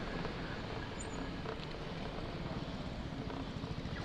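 Steady rolling noise of an electric bicycle being ridden slowly over brick paving.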